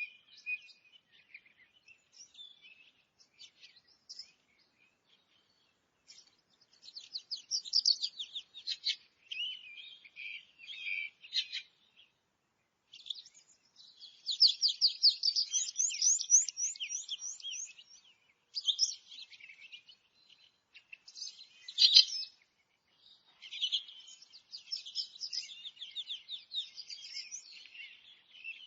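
Several forest songbirds singing: rapid chirping trills and warbled phrases that come and go in bursts with short pauses between them.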